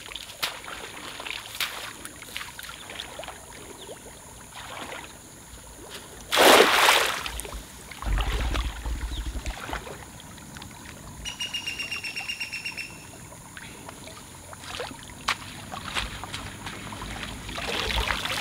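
Water trickling and splashing in shallow pools, with one loud burst of noise lasting about a second, six seconds in. About halfway through comes a short, rapid trill of evenly spaced pulses.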